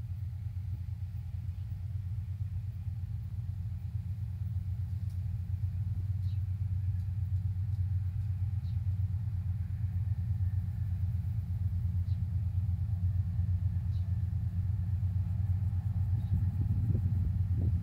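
2TE10Ut two-section diesel locomotive hauling a freight train, its 10D100 two-stroke opposed-piston diesel engines giving a deep steady rumble that grows slowly louder as it approaches.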